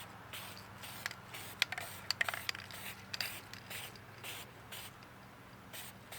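Anti-squeak coating being applied to a brake rotor: a run of short, scratchy strokes, with a cluster of sharp clicks from about a second and a half to two and a half seconds in, over a steady low hum.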